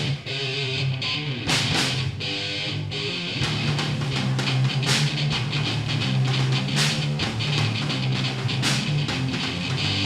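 Rock band playing an instrumental passage between sung lines, electric guitar to the fore over a steady bass line and regular beats.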